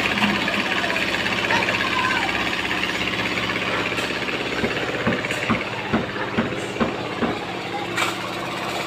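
Engine of a concrete mixer running steadily at a constant speed while the mixer is being loaded for pouring a roof slab. A run of short sharp knocks starts about halfway through.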